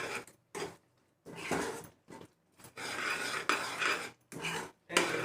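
A spoon scraping and stirring thick gravy in a cooking pan, in several uneven strokes with short pauses between them.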